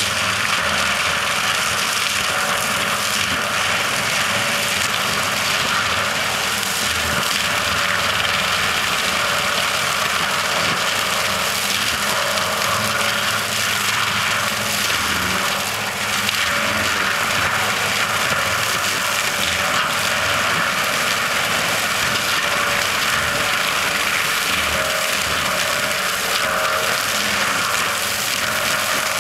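Tractor engine running steadily under load, with its hydraulic mounted chopper spinning as it shreds old Christmas trees.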